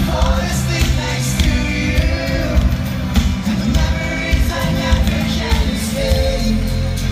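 Live pop-rock band playing with singing over a steady bass and drums, heard through a large venue's sound system from far back in the crowd.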